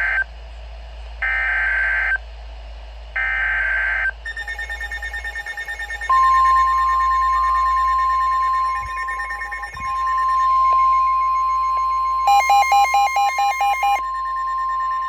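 NOAA Weather Radio Emergency Alert System sequence. First come three short buzzy SAME digital header bursts about a second apart. Weather radio receivers then start beeping, and about six seconds in the steady Weather Radio warning alert tone comes on and holds to the end, with another radio's rapid pulsing alarm sounding for about two seconds near the end; together these signal the start of a new warning, here a severe thunderstorm warning.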